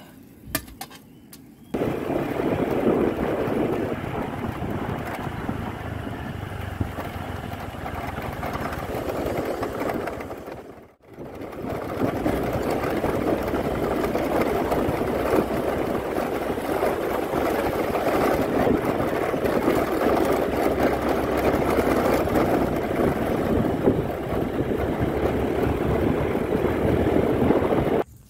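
Motor scooter being ridden: steady engine, wind and road noise, with a brief dropout about eleven seconds in and a sudden stop near the end.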